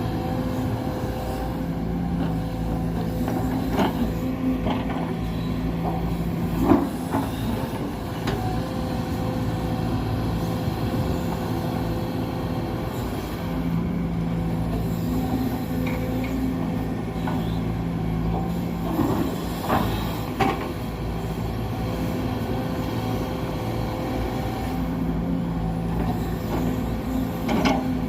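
Hydraulic excavator's diesel engine and hydraulics working, the engine note swelling and easing as the load comes and goes, with a few sharp metal clanks.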